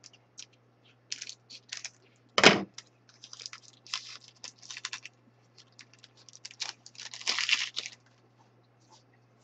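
A foil trading-card pack being snipped open with scissors, then the wrapper crinkling and rustling as the cards are slid out and handled. There is one sharp knock about two and a half seconds in, the loudest sound.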